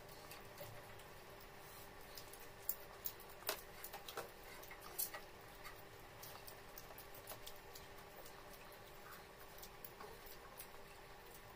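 Faint scattered clicks and light taps, a few sharper ones in the first half, over a low steady hum.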